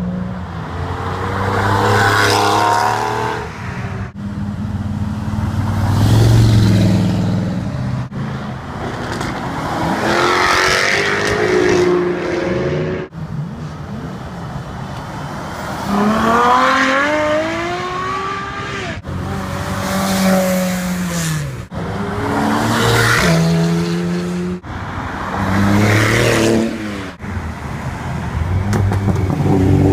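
Supercar engines revving hard and accelerating past, one car after another, their pitch sweeping up through the gears and dropping as each passes. The sound changes abruptly every few seconds from one car to the next.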